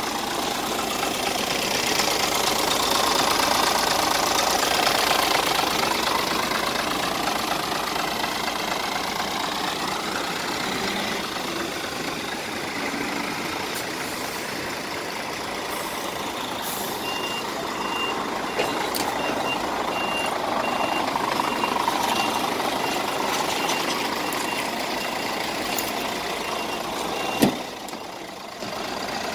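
Steady rushing vehicle noise with a reversing alarm beeping in short high-pitched pulses from about halfway in. A sharp click near the end, after which it goes quieter.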